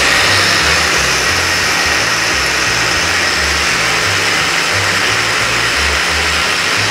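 Electric blender motor running steadily at full speed, grinding an oily spice paste of chillies, shallots, garlic, candlenuts and shrimp paste until smooth. Background music with a changing bass line plays underneath.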